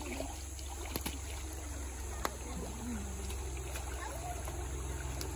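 Shallow river water sloshing and lapping around a wading woman and toddler, over a steady low rumble, with faint children's voices and a couple of small knocks.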